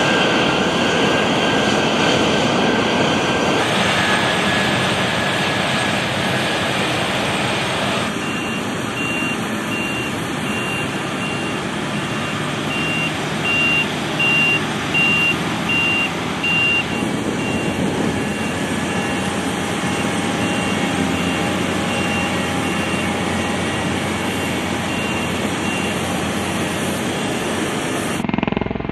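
Steady aircraft jet engine noise, changing abruptly a few times. A vehicle's backup alarm beeps at an even pace through much of it.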